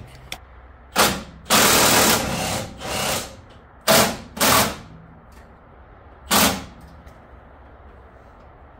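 Impact wrench run in about seven short bursts, the longest about a second, working a bolt that keeps spinning instead of backing out.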